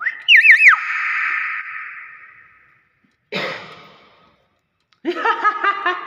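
Nias hill myna calling: a short, wavering high whistle, then a long breathy hiss that fades away, and a second shorter hiss about three seconds in.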